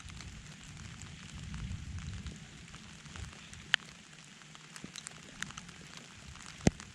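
Steady rain falling, with a low rumble of distant thunder that dies away about two and a half seconds in. A few sharp taps of drops land close by, the loudest near the end.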